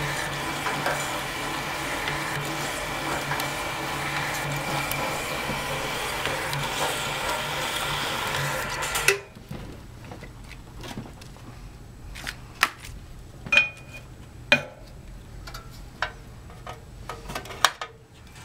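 Electric business card slitter running, its motor and feed rollers drawing sheets through the slitting blades with a steady hum. It stops abruptly about nine seconds in, followed by scattered clicks and knocks of cut cards and the output tray being handled.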